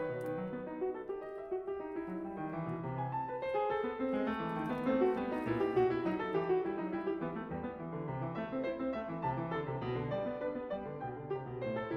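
Background piano music, a gentle run of many notes.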